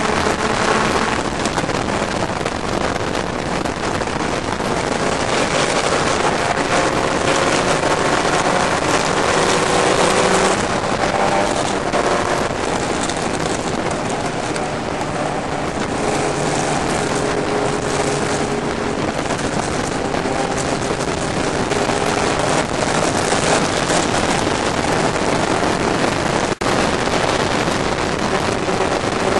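Onboard sound of a historic race car at racing speed: the engine runs hard under heavy wind rush over the open cockpit. The engine note shifts pitch several times, and the sound cuts out for an instant near the end.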